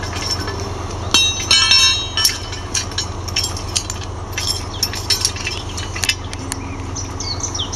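Metal clinks and clanks of hose couplings and hydrant fittings being handled as a fire hose is connected to an above-ground hydrant. A few ringing metallic strikes come about a second in, then scattered lighter clicks.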